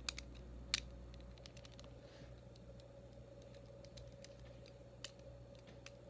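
Sparse clicks and taps of plastic Lego pieces being handled and swung open, with a sharper click just under a second in and another about five seconds in.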